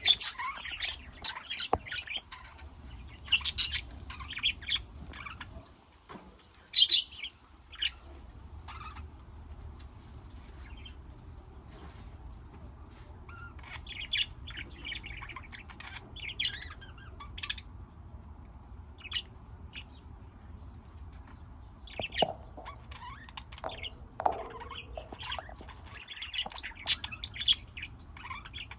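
Pet budgerigars and lovebirds chirping and squawking in short, irregular calls, with a few louder calls standing out.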